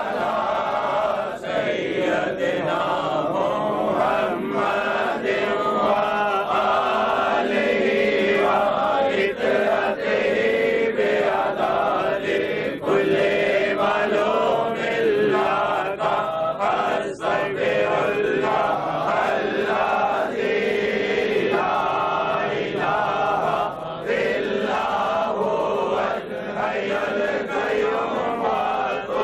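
A large group of men's voices chanting together in unison, a devotional zikr chant, at a steady level.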